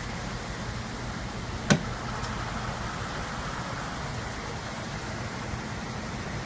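Steady hiss with a low hum from a Honda Civic sedan whose engine bay is pouring smoke or steam. One sharp bang about two seconds in is the loudest sound, around the moment the driver's door is opened.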